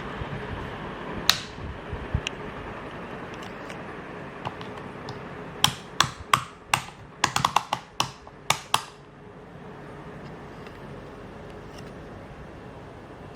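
CMC industrial ceiling fan running with a steady hum and whoosh. One sharp click about a second in, then a quick irregular run of about a dozen sharp clicks between the middle and about two-thirds of the way through.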